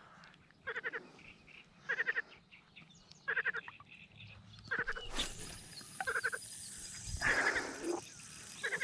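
A frog calling from the reedy pond edge in short pulsed croaks, one about every second and a half. A rustling noise joins in over the second half.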